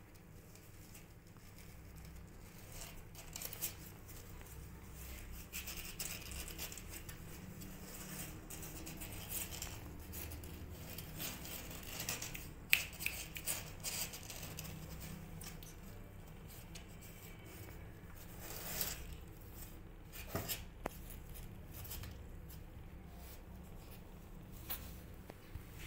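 Newborn kittens and their mother cat shifting and scrabbling on a cardboard box floor while nursing: soft rustling and scratching with scattered light clicks, the sharpest about halfway through, over a faint low hum.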